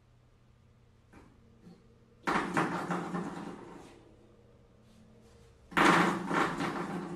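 Spring door stopper twanging twice as it is flicked and released, each a sudden twang whose ringing hum dies away over a second or so. A faint click comes about a second in.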